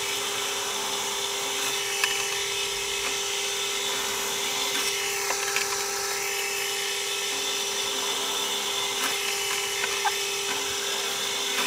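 Power drill running at a steady speed while drilling 5.5 mm holes through an aluminium plate, with a few small clicks.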